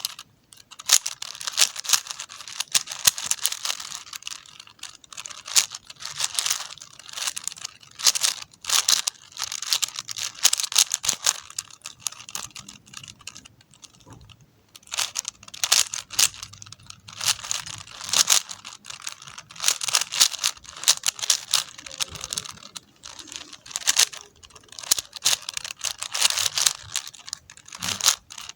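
A 4x4 Rubik's cube being turned rapidly by hand: its plastic layers click and rattle in quick flurries of turns, with short pauses between bursts.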